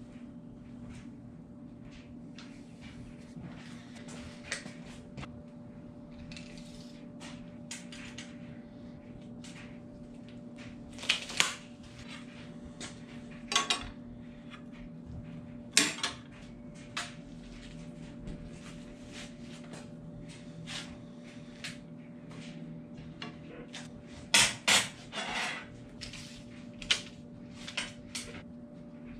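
Steel rods and tools being handled on a steel workbench and a vise-mounted rod bender: scattered metal clanks and clinks, with a few louder clangs, over a steady low hum.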